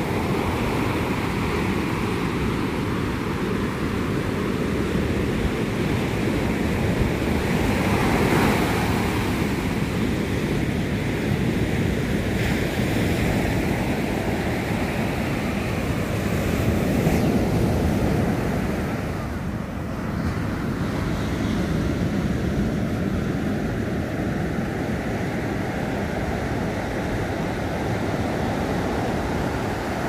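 Ocean surf breaking on a sandy beach and washing up the shore, a continuous rush that swells louder about eight and seventeen seconds in, with wind buffeting the microphone.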